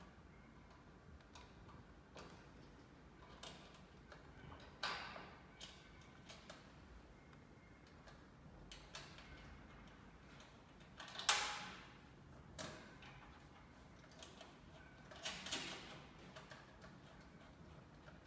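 Irregular clicks and light knocks of a heavy battery cable being handled and fitted onto an inverter's positive terminal, the loudest knock about eleven seconds in.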